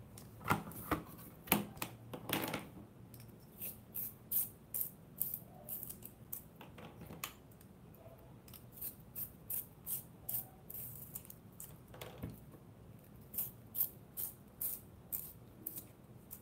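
Colored pencils being sharpened in a small handheld Apsara long-point sharpener: a run of dry, irregular clicks and scrapes as the dull wooden pencil is twisted against the blade. In the first two seconds a few louder plastic clacks come from a clear plastic box being moved and opened.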